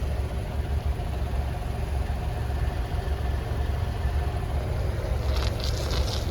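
Car engine idling with a steady low rumble. Brief rustling and clicks near the end.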